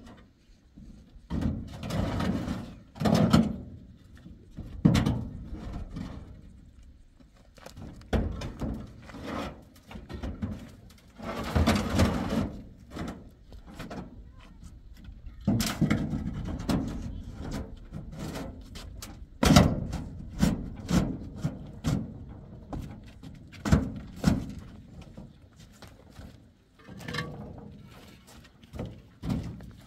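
Building blocks being handled and set down: irregular heavy thunks and knocks, some sharp and some dull and drawn out.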